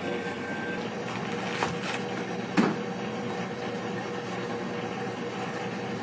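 Steady mechanical hum with a few light knocks, the sharpest about two and a half seconds in.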